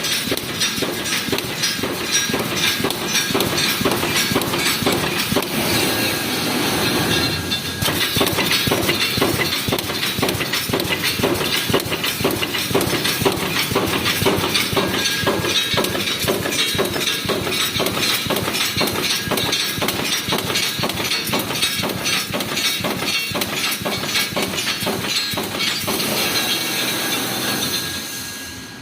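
Pneumatic wire mesh welding machine running at speed: a dense, rapid clatter of repeated mechanical strokes as it welds cage mesh. The clatter eases briefly about seven seconds in and fades near the end.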